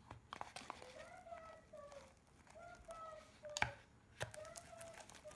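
Slime being stirred with a plastic spatula in a plastic bowl: soft sticky squelches with sharp clicks of the spatula against the bowl, the slime just mixed with borax activator. A faint wavering tone comes and goes underneath.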